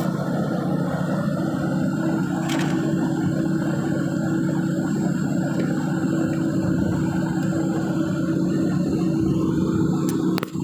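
Arc welding on a pipe: a steady crackling sizzle from the arc over a low, even hum, held unbroken as a bead is run and cut off briefly near the end.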